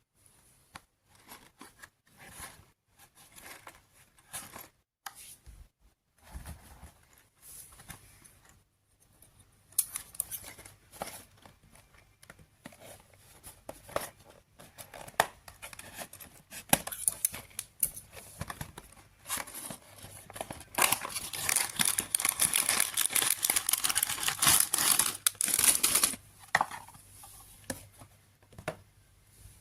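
Toy packaging being opened by hand: plastic and paper crinkling and tearing, with scattered small clicks and rustles. About two-thirds of the way through comes a longer, louder run of steady crinkling.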